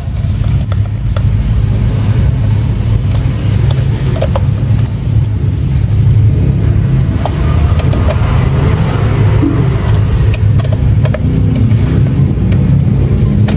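A steady, loud low rumble with scattered light clicks.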